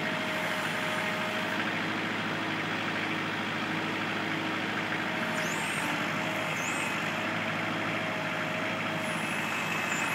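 Kubota L4400 tractor's four-cylinder diesel engine running steadily while the BH92 backhoe digs, with faint tones that come and go over the engine.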